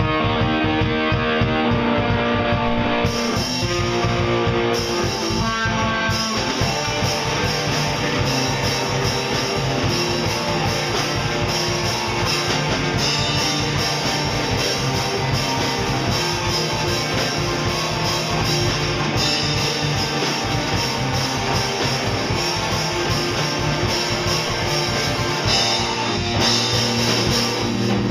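Live rock band playing: electric guitars open alone, then the drum kit and cymbals come in about three seconds in and the full band plays on.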